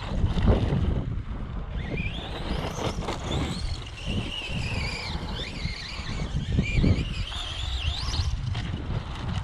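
Brushless electric motor of a Redcat Volcano EPX RC truck whining, its pitch rising and falling as the throttle is worked, over heavy wind noise on the microphone.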